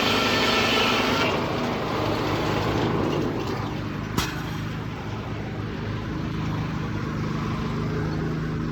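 A sawmill's Detroit 6-71 diesel engine running steadily, heard muffled from inside an overall pocket. A high whine stops about a second in, and there is a single sharp knock about four seconds in.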